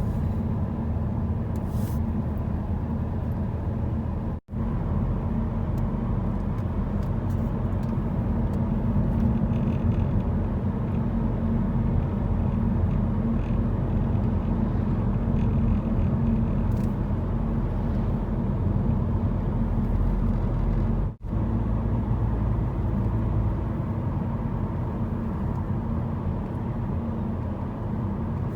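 A car driving, with a steady low rumble of road and engine noise. It cuts out abruptly twice.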